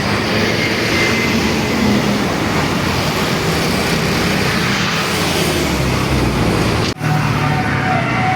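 Loud, steady roadside traffic noise of vehicles passing. About seven seconds in the sound breaks off abruptly, and a steady pitched tone comes in over the traffic.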